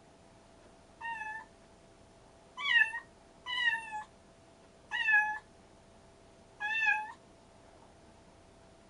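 Domestic cats meowing: five short, fairly high-pitched meows spaced about a second apart, with a faint steady hum behind them.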